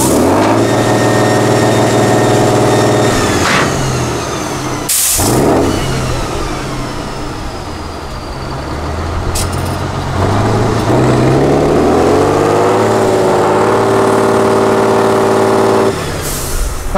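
Diesel engine of an 8x8 Tatra trial truck working hard in deep mud. The revs climb at once and hold high for about three seconds, fall back, then rise again from about ten seconds in and hold until near the end. A short sharp hiss of released air comes about five seconds in, and another just before the end.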